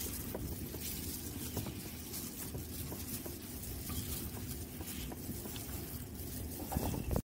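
Plastic-gloved hands tossing chicken pieces in flour in a metal bowl: irregular soft rustling and patting of glove, flour and meat, over a steady low background rumble.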